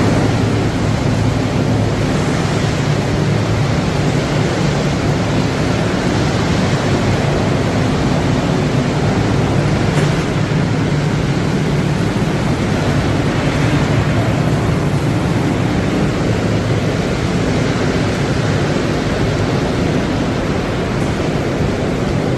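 Steady rushing noise of a running biochar production line, its rotating drums, conveyors and motors, with a low hum underneath.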